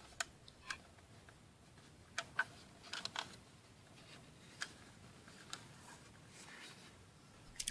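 Scattered faint clicks and light taps of a plastic toy landspeeder being handled and turned over.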